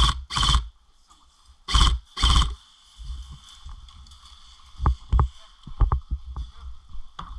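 Airsoft rifle firing four short full-auto bursts in two quick pairs in the first two and a half seconds, each a brief rapid rattle of shots. Scattered single sharp clicks and knocks follow.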